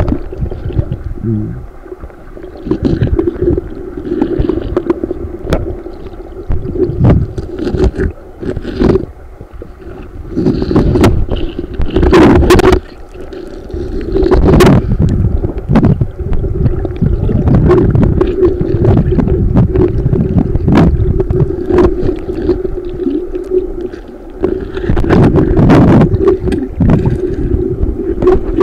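Muffled underwater sound from a camera submerged in a shallow stream: churning, gurgling water with a steady low hum, broken by frequent knocks and thuds as hands, feet and the camera bump against rocks and sand.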